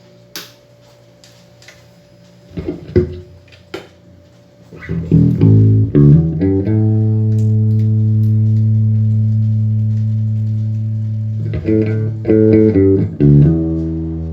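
Five-string Warwick Corvette SS electric bass, with its newly fitted custom two-band EQ preamp, played through an amplifier's 1x12 speaker. A few clicks over a faint hum at first, then plucked notes, one low note held ringing for about five seconds, and a few quicker notes near the end.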